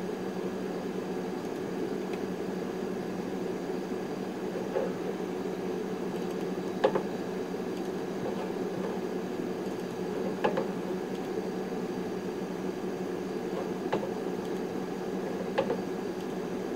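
Steady hum of a running server's cooling fans, even and unchanging, with about five sharp mouse-button clicks spread through it.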